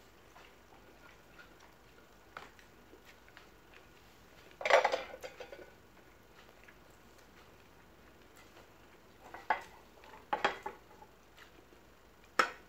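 Ceramic dinner plates and a metal serving spoon clinking and clattering against each other and a serving pot: one loud clatter about five seconds in, then a few sharp clinks near the end.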